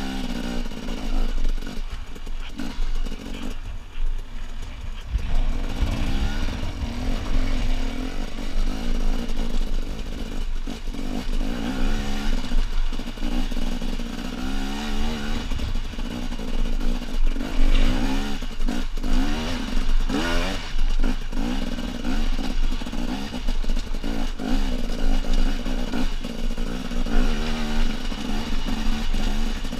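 Husqvarna TE250 enduro motorcycle engine under load on a steep rocky climb, its pitch rising and falling as the throttle is worked, with the bike clattering over loose rocks.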